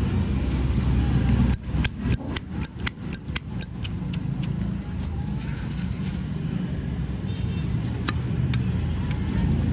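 Zippo lighter's hinged metal lid flicked open and snapped shut repeatedly: a quick run of about a dozen sharp, ringing metallic clinks, then three more single clicks near the end, over a steady low rumble of traffic.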